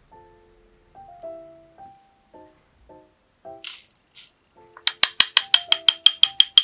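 Powdered desiccant hissing briefly twice as it pours from a ceramic mortar into a stainless steel tray. About five seconds in, a fast, even run of sharp rattling taps with a high ring, about eight a second, as the mortar and pestle are knocked to shake the powder out. Soft background music with plucked notes plays throughout.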